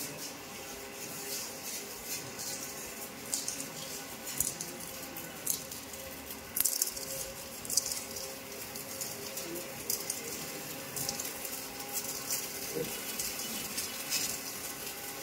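Steady hum of running machinery, with irregular crackles and rustles over it.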